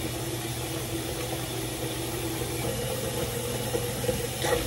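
Bathroom tap running steadily into the sink, a hiss over a low hum, with a short splash near the end.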